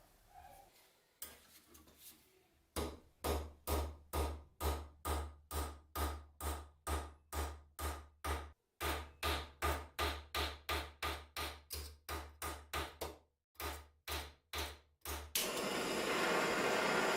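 A hammer striking in a steady rhythm, about three blows a second, each with a dull low thud, pausing briefly twice. Near the end a power tool starts up with a loud, steady noise.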